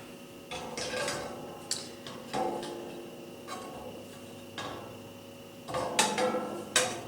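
Light clinks and knocks of decor pieces being moved and set down on a wire-shelved tier tray, a string of separate taps spread over several seconds.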